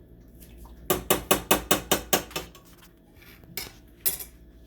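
A utensil knocking against a cooking pot while pot pie filling is mixed: a quick run of about ten sharp knocks, then two more single knocks.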